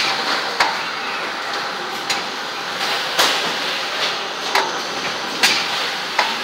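Box conveyor line running with a steady mechanical hiss, and cardboard boxes knocking against each other and the metal rails and rollers in sharp, irregular knocks, about one a second.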